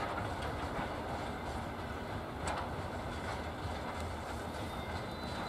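Freight train's open wagons rolling slowly past, a steady rumble of wheels on the rails with one sharper clack about halfway through.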